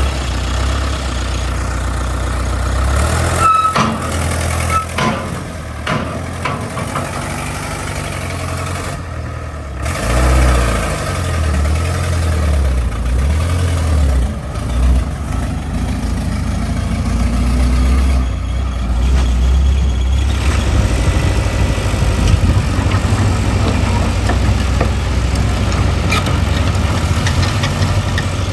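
Heavy earthmoving machine's diesel engine running with a deep rumble, rising and falling in pitch a couple of times as it works. There are a few sharp metallic knocks a few seconds in.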